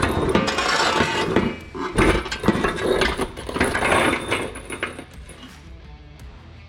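Steel wheel dolly clattering and scraping on a concrete floor as it is pulled and pushed into place under a car tyre, with many knocks and rattles. It stops about five seconds in.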